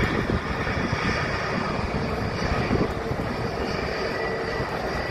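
Jet engines of an Azores Airlines Airbus A321neo at taxi power as the airliner rolls past: a steady rushing hum with a faint high whine.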